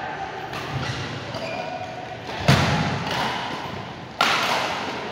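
Badminton play: two sharp racket hits on the shuttlecock, about two and a half seconds in and again near four seconds, over faint background voices.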